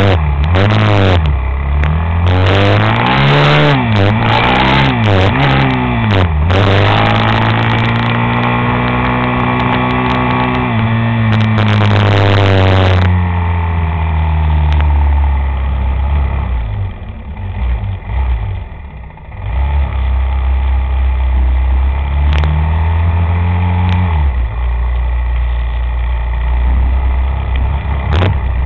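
A motor vehicle's engine revved up and down several times in quick succession, then held at higher revs for several seconds before settling back to a steadier, lower speed.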